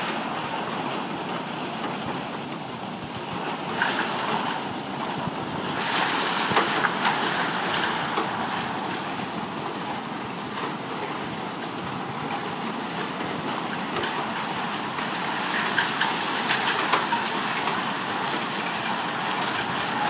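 Hailstorm with rain: a steady hiss of downpour sprinkled with many small ticks of half-inch hailstones striking grass and a concrete patio.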